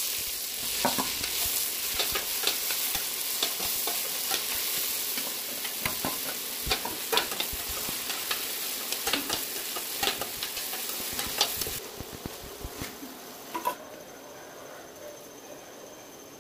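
Chopped onions frying and sizzling in hot oil in a stainless-steel kadhai, with a steel spatula scraping and clinking against the pan as they are stirred. The sizzle drops off sharply about three-quarters of the way through, leaving a few last clinks.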